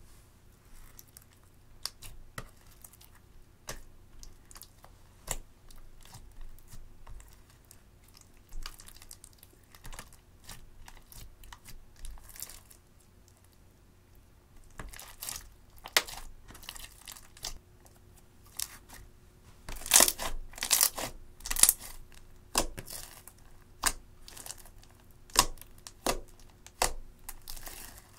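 Sticky slime being stretched, folded and kneaded by hand, giving irregular wet pops, clicks and crackles as it pulls apart and is pressed together. The popping is thickest and loudest about twenty seconds in.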